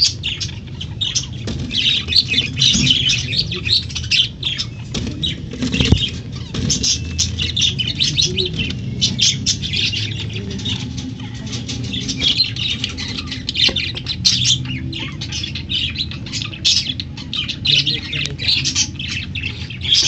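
Budgerigars chattering: a dense run of quick, high chirps that goes on throughout, over a low steady rumble.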